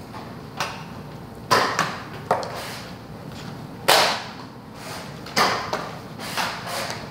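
Nerf blasters firing and foam darts hitting: a string of sharp, irregular snaps and thumps, about eight in all.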